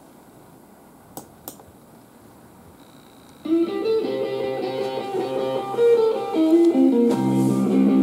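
Background guitar music with a steady bass line that starts abruptly about three and a half seconds in. Before it there is only quiet room tone and two short clicks.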